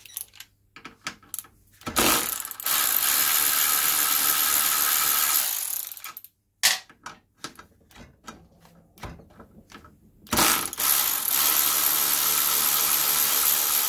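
Draper Storm Force 10.8V cordless 3/8" ratchet running twice, each time for about four seconds, as it drives a 10 mm socket on a motorcycle's fork pinch bolts. The second bolt is a little bit of a struggle for it. Between the runs there are light metallic clicks as the socket is moved onto the next bolt.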